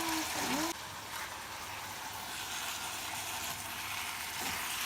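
Beef frying in a pot with soy sauce just added: a steady sizzling hiss. It drops suddenly in level under a second in, then carries on evenly.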